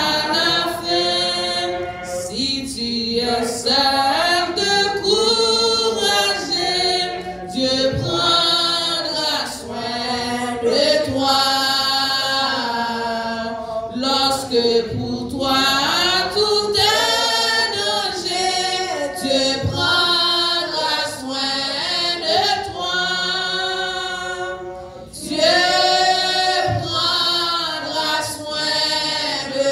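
Unaccompanied hymn singing: a woman's voice over a microphone, with other voices joining in, in long sung phrases.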